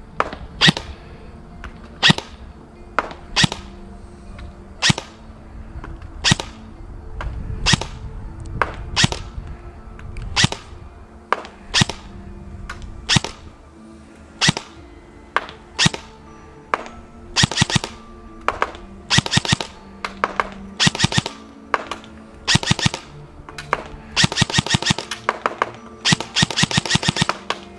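Evolution Airsoft Reaper XS airsoft electric gun firing on semi-automatic, one sharp shot about every second. From about 17 seconds in the shots come in quick strings of two or three. Background music plays underneath.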